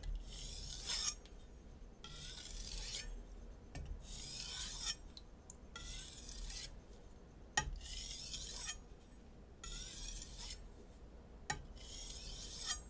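Shun Classic chef knife drawn across a Naniwa Super Stone 400 whetstone in about a dozen strokes, each a soft scraping hiss of roughly a second with short pauses between. These are single finishing passes on a stone running quiet now that the burr has fallen off and the edge has cleaned up.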